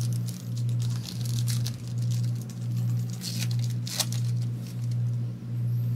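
Foil wrapper of a football card pack crinkling and tearing open, with sharper crackles about three and four seconds in. Under it runs a low hum that swells and fades about twice a second.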